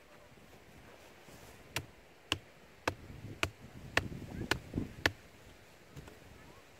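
Seven sharp wooden knocks at a steady pace of about two a second, a blade striking the top of a forked wooden stake.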